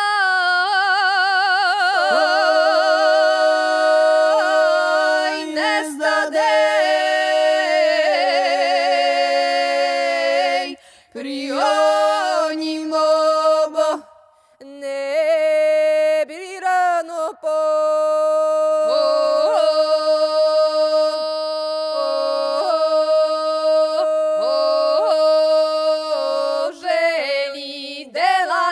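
A man and two women singing a Serbian village harvest song a cappella in two-part traditional style. Long held notes are decorated with short, sharp upward flicks in pitch, and there are two brief breaks for breath about halfway through.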